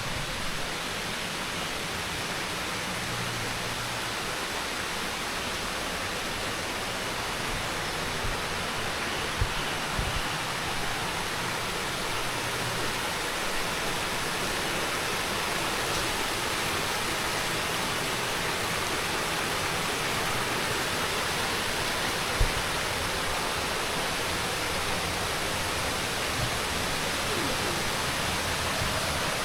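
Steady rush of running water, a stream flowing, with a few soft low thumps, one sharper about two-thirds of the way through.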